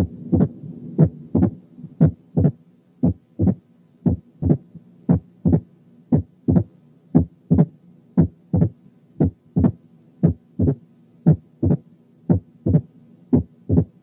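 Recorded heart sounds with a mitral stenosis opening snap: sharp, snapping beats repeating about twice a second, over a faint low steady hum.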